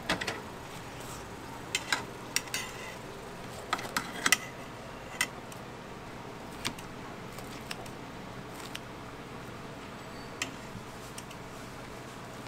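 Kitchen scissors snipping through a hotteok and metal tongs clicking as the pieces are handled: about a dozen sharp, irregular clicks, most of them in the first half, over a steady low background hum.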